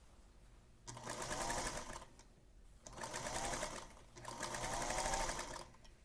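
Electric sewing machine stitching a quilt's border seam in three short runs with brief stops between them, starting about a second in.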